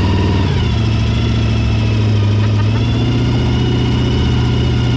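Jet boat's inboard engine running steadily, a deep drone that rises slightly in pitch about three seconds in.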